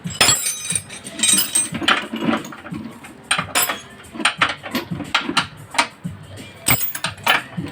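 Hand tools working on a car's steering rack underneath the car: irregular metallic clicks and clanks, several a second at times.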